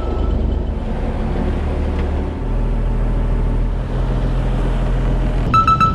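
Fishing boat's engine running with a steady low drone, its note shifting a little about two seconds in. A quick run of rapid electronic beeps near the end.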